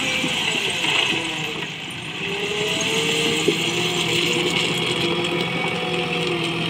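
JCB 3DX backhoe loader's diesel engine working under load as its front bucket digs into a pile of railway ballast and lifts, the engine speed rising and falling with the hydraulic work, with the scrape of the stones mixed in.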